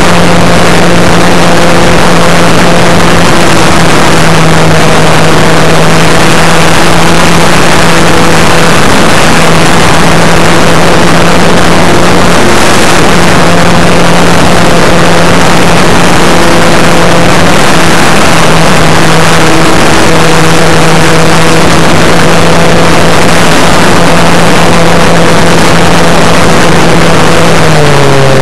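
Brushless electric motor and propeller of an RC Super Cub running at a steady high pitch, heard from the plane's onboard camera under a dense rush of wind noise. The pitch drops near the end.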